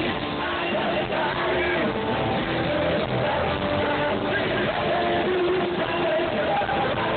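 Rock band playing live with a singer, amplified over a concert PA and heard from among the audience.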